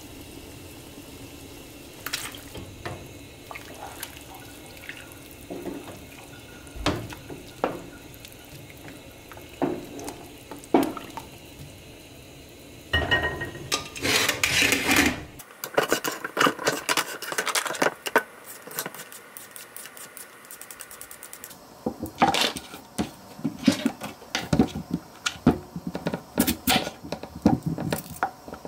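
Kitchen cooking sounds: water and utensils clinking against a steaming soup pot, then many quick irregular taps and clicks of knife work on a wooden cutting board.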